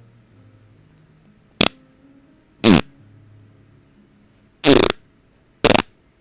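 Four short, loud farts in a row, a second or two apart; the second drops in pitch and the third is the longest.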